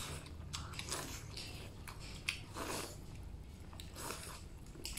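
A person chewing and eating stewed chicken and soup-soaked rice close to the microphone, with irregular soft mouth and eating noises and a short sharp click about two seconds in.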